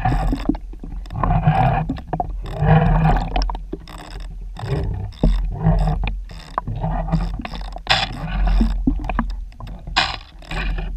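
Muffled underwater rumbling and gurgling of water, heard through a submerged camera, coming in irregular surges about a second apart with a few sharp clicks.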